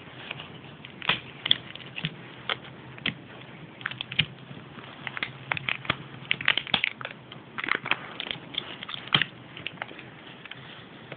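Plastic packaging being handled and opened, with irregular crinkles, clicks and crackles, busiest in the middle.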